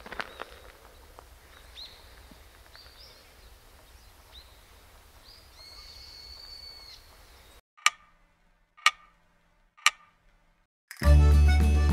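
Birds chirping over faint outdoor hiss at dawn, then three sharp clock-tick sound effects about a second apart, after which music begins near the end.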